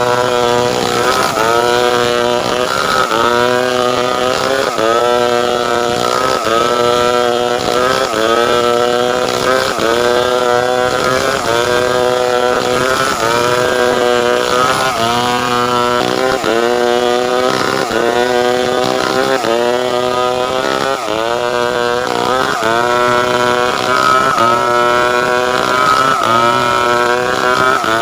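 Stihl two-stroke chainsaw running under load while cutting wood into boards. Its engine pitch rises and dips about once a second, over and over.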